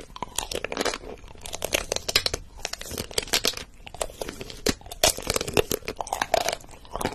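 Close crunching of a thin, crunchy stick snack being bitten and chewed: a dense, irregular run of crackling crunches.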